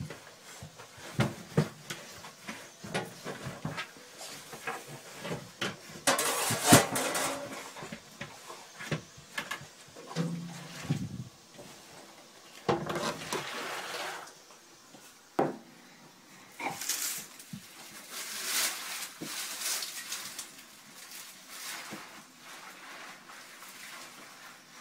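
A dog rolling and squirming on a wooden sauna bench: many scattered knocks, scrapes and scratches of its claws and body on the boards. There are a few longer stretches of hissing, rushing noise, about six seconds in and again past the middle.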